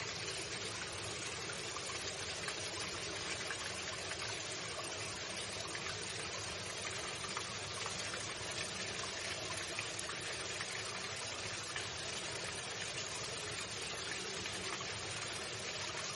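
Water flowing steadily in a stream, an even rushing with no breaks or changes.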